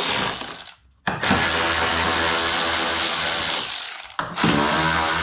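Milwaukee cordless electric ratchet running on the car's 10 mm headlight mounting bolts in three spurts. The motor winds down and stops just under a second in, runs again for nearly three seconds, gives a short blip, then starts up again.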